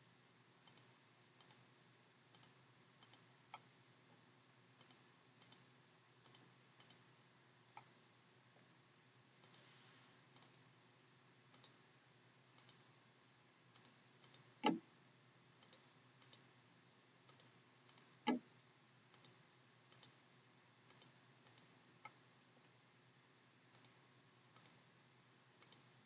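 Computer mouse clicking irregularly, often in quick pairs, with two duller knocks partway through and a brief hiss about ten seconds in.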